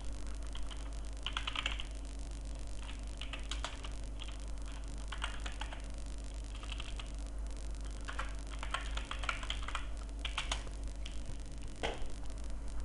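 Computer keyboard typing in short bursts of quick key clicks, with pauses between bursts, as a user name and password are entered.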